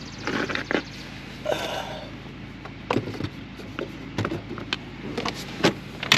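Handling noise: two brief rustles, then a string of light clicks and knocks, the loudest near the end, as a bottle of brake fluid is handled.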